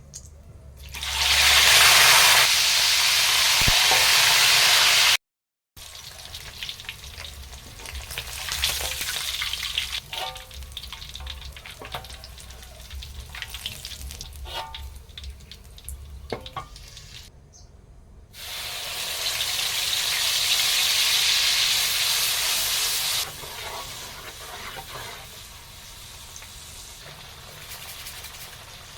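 Food frying and sizzling in hot oil, with utensil clicks and scrapes from stirring in the pan. The sizzle is loudest in two stretches, near the start and about two-thirds of the way through, with two brief moments of silence between them.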